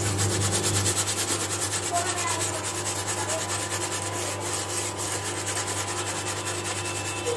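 A gas stove top being scrubbed by hand around the burner: quick, rhythmic rubbing strokes, several a second, over a steady low hum.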